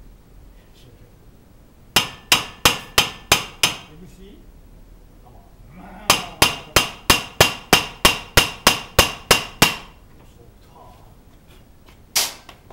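Hammer blows ringing on steel at a car's front hub and suspension, with six quick strikes, then a longer run of about thirteen at three to four a second, and one last blow near the end.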